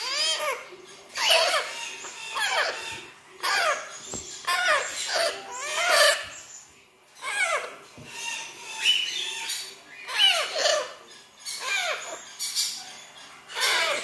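Parrot chicks making repeated begging calls, wavering squawks in quick succession about once a second, with a short pause around the middle.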